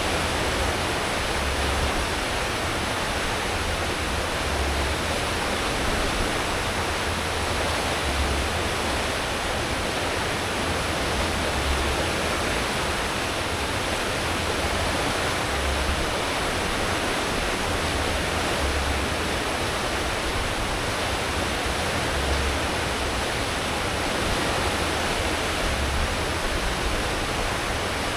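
Steady rushing churn of a cruise ship's wake, stirred up by its propellers at full speed, with a low rumble of the ship's engines underneath that swells now and then.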